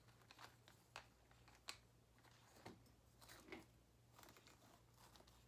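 Near silence with a few faint, scattered clicks and rustles of small decorations being handled and pushed into a fabric-lined basket of netting, over a low steady hum.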